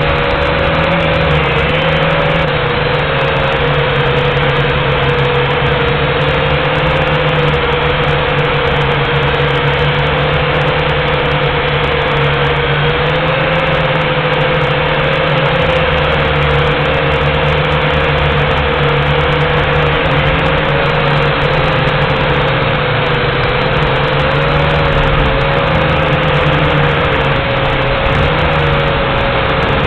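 JXD 509G quadcopter's small electric motors and propellers whining steadily in flight, heard close up through the drone's own onboard camera. The pitch wavers slightly now and then.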